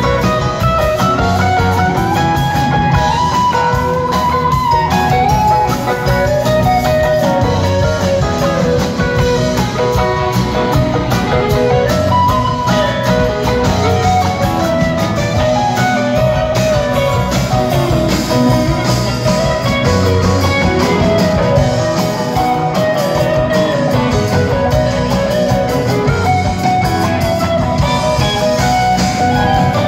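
Live rock band playing: an electric guitar lead line winding over drums, bass and keyboards, heard from the audience.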